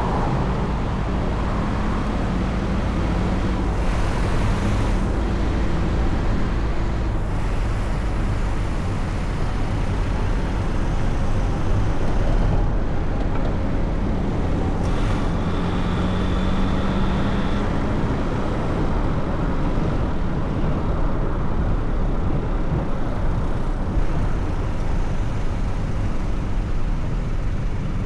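A car being driven: a steady rumble of road and engine noise, with the engine notes of surrounding traffic drifting up and down.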